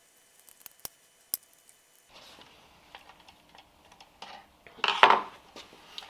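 A hand tool working on electrical wire: two sharp clicks about a second in, then handling rustle with small clicks, and a louder snip near the end as the cable is cut into to tap a feed.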